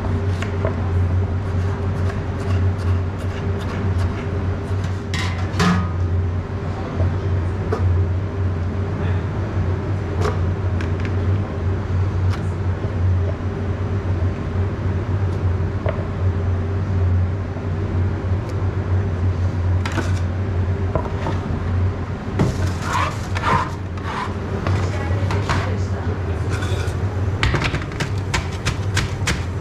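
Pizza-kitchen work sounds: a steady low machine hum under scattered clicks, knocks and scrapes of food preparation, which come thicker near the end.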